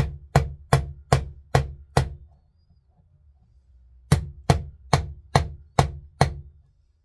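Small brass-headed hammer tapping a punch to drive a new rear sight into its dovetail on a Ruger Mark IV Lite pistol. Two runs of six sharp taps, about two and a half a second, with a pause of about two seconds between them.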